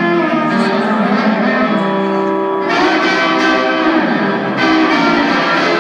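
Live rock band playing, with electric guitar to the fore, heard from the audience. The sound thickens and gets brighter a little under halfway through.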